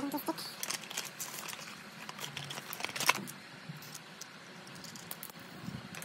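A plastic selfie stick with phone clamp and its packaging handled by hand: scattered light clicks and rustling, with a sharper cluster of clicks about three seconds in and a few more near the end.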